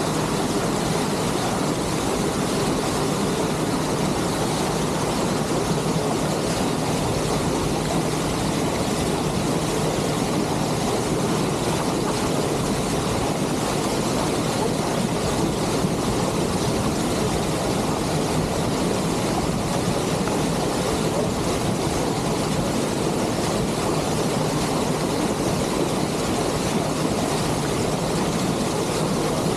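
Lake passenger ship under way: a steady engine drone with a constant low hum, over the even rush of water along the hull and wind.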